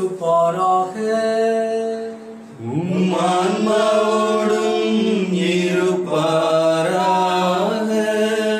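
A priest chanting a sung prayer of the Mass in long held notes that rise and fall slowly, with a brief drop-off about two seconds in before the chant resumes on a rising note.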